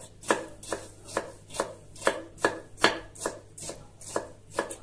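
Kitchen knife chopping a peeled cucumber into small cubes on a wooden cutting board, a steady run of sharp cuts at about two or three a second.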